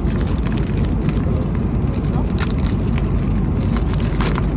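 Steady low rumble of an airliner cabin in flight, with a few short crinkles of a paper snack bag being handled.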